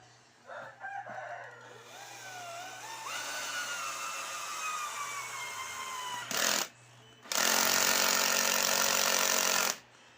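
Woodworking power tool run in two bursts: a short one, then a louder one lasting about two and a half seconds. Before that a rooster crows, and a slowly falling whine follows.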